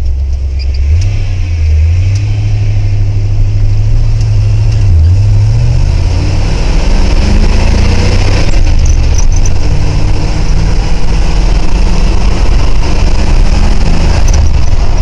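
1979 Ford F-150 pickup's engine running under way, its pitch stepping up about a second in, dipping briefly about five seconds in, then climbing as the truck pulls.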